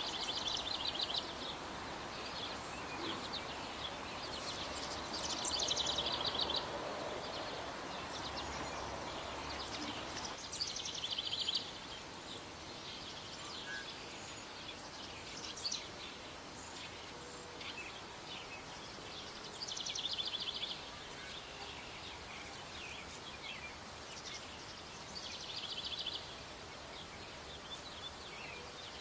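Small birds calling in the background: short bursts of rapid high-pitched notes every few seconds over a steady outdoor hiss. A lower noise drops away about ten seconds in.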